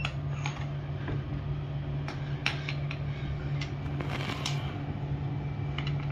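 Scattered light clicks and clinks of small hard objects being handled, over a steady low hum.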